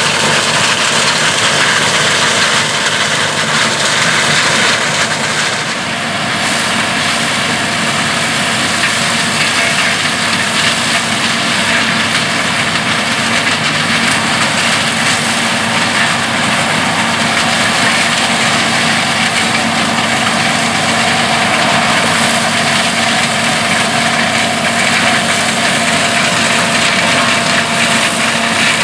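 John Deere 4420 combine harvesting corn, its six-cylinder 329 cubic inch diesel and threshing machinery running steadily under load, with a brief dip in loudness about six seconds in.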